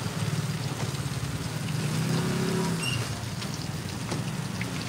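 A steady low engine hum, like a vehicle idling, with a few light ticks and knocks of boxes and gear being handled.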